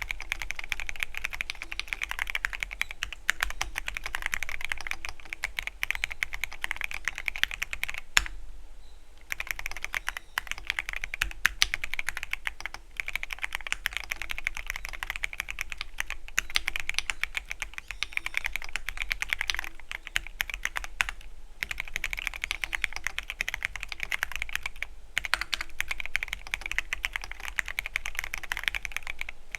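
Keychron Q13 Pro Max mechanical keyboard with red linear switches, typed on in a fast, continuous stream of key clicks, with a short pause about eight seconds in.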